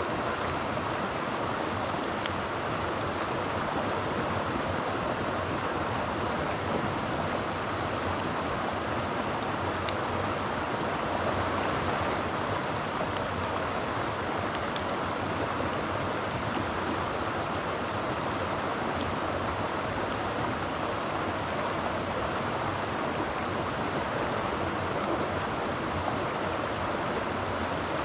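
Mountain creek rushing steadily over rocks, a constant wash of water noise.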